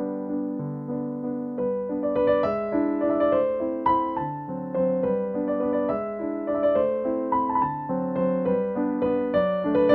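Background piano music: a melody played over held chords, with higher notes joining about two seconds in.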